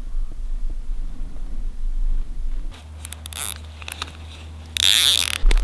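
Wind rumbling on the microphone, then two bursts of rustling about three and five seconds in, the second louder.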